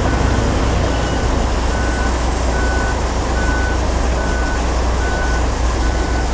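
Diesel locomotive (EMD F40PH-2CAT) running with a steady low rumble, while a short, high electronic beep repeats about every 0.8 seconds over it.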